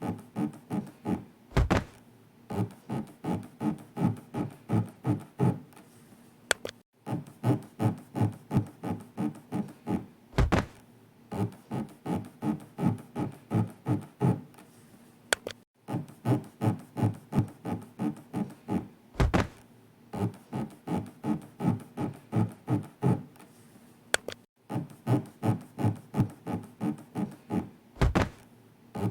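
Looped rubbing sound effect: a fast run of short scraping strokes, about four a second, broken by one heavy thud and a short click in a cycle that repeats about every nine seconds. It paces elevator breathing, standing for the imagined floor scraping along the body's inner wall.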